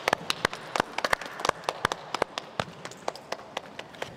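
A small crowd applauding by hand, with separate claps heard, thinning out toward the end.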